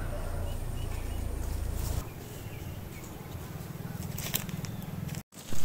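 Rural outdoor background: a steady low rumble with a few faint bird chirps and some light clicks. The audio cuts out briefly near the end.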